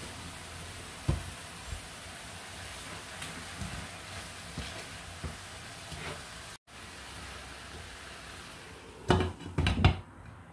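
Water spinach sizzling in hot oil in a stainless steel frying pan, with a few light knocks as a wooden spoon stirs it. Near the end a glass pan lid is set on with a loud clatter.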